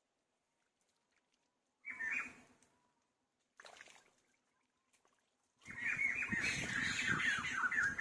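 Animal calls in short bursts: a brief call about two seconds in, a fainter one near four seconds, then a longer jumble of quick pitched calls with some rustling underneath from about six seconds on.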